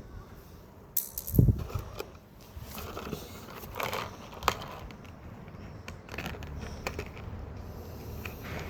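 Irregular knocks and clicks of hard objects, the loudest just after a second in, over a low background rumble.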